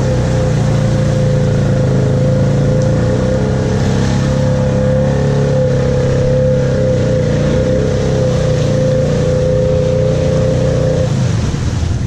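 ATV engine running at steady revs as the quad wades through a shallow muddy creek, its tyres churning water; the engine note drops off about eleven seconds in.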